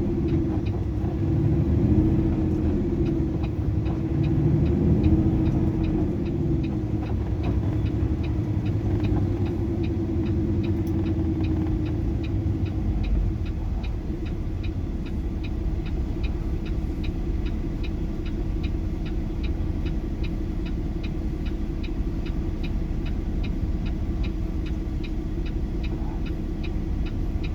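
Semi truck's engine heard from inside the cab while driving slowly, its pitch rising and falling over the first dozen seconds, then running steadily. A regular light ticking runs alongside from about ten seconds in.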